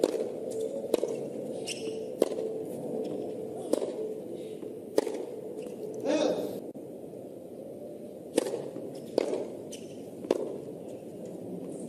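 A tennis ball struck by rackets and bouncing on a hard court: sharp pops about a second apart, with a short louder burst about six seconds in.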